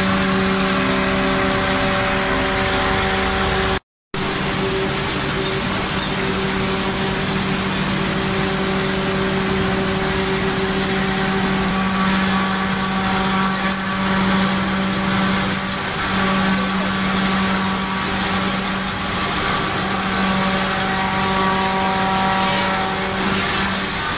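CNC router-bit jigsaw at work: the high-speed spindle runs with a steady hum while its router bit cuts a curved contour through a thick wooden board, with a continuous hiss of cutting. The sound drops out for a moment about four seconds in, then resumes unchanged.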